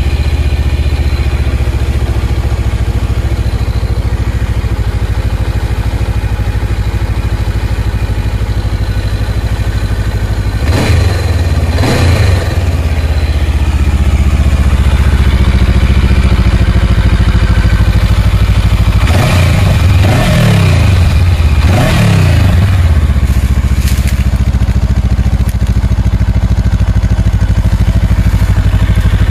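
Honda CB500X's 471cc parallel-twin engine idling in neutral, heard through its exhaust, with short throttle blips that rise and fall in pitch: two about eleven seconds in and three more around twenty seconds in.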